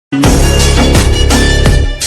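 Loud electronic music with a heavy bass line and a pounding kick drum that drops in pitch, starting abruptly at the very beginning.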